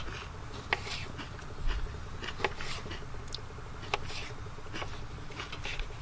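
Small knife slicing cherry tomatoes on a wooden cutting board: quiet scraping with a few light taps of the blade on the board.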